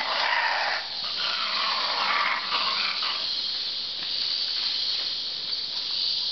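Mantled howler monkeys howling overhead, a loud breathy chorus of growling roars that swells and eases, which the observer takes for a fight among the troop.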